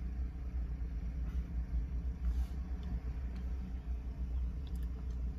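Car engine idling, a steady low rumble heard from inside the cabin, with a few faint clicks near the end.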